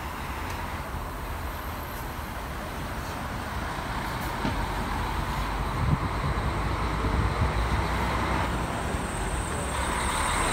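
Street traffic noise: motor vehicles running and passing as a steady rumble that grows louder about halfway through.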